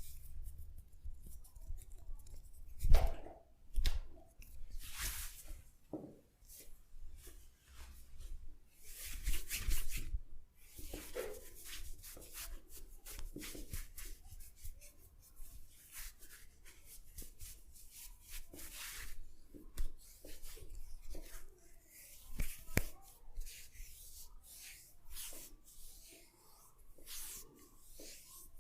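Hands rubbing and kneading oiled skin and hair in a head and neck massage, in irregular strokes of varying length. Two sharp, louder sounds come about three and four seconds in.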